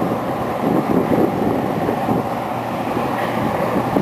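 Sandstorm wind blowing hard against the microphone: a loud, continuous rush of low noise that flickers unevenly from moment to moment.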